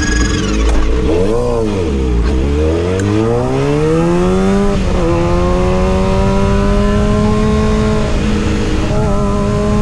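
Kawasaki ZX-6R inline-four sport bike engine revving up and back down, then accelerating hard, its pitch climbing steadily and dropping sharply at an upshift about five seconds in and again near the end.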